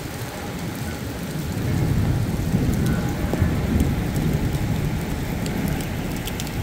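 Heavy rain pouring onto pavement, with a low rumble of thunder that swells about two seconds in and fades over the next few seconds.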